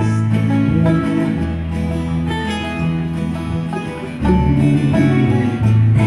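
Live acoustic band playing: acoustic guitars strumming with a banjo picking over them, an instrumental stretch without singing. The playing gets louder about four seconds in.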